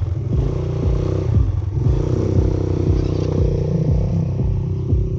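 ATV engine running steadily at low speed.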